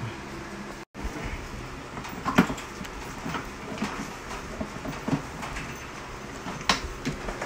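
Hard plastic parts of a children's electric ride-on motorbike clicking and knocking as they are handled and fitted together, with irregular taps throughout and the sharpest knocks about two seconds in and again near the end.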